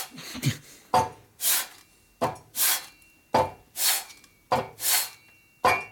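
Aluminium Sportster cylinder head being slid back and forth on sandpaper over a flat plate, lapping its gasket face flat. The rasping strokes come about once a second, five times, each starting sharply and trailing into a hiss.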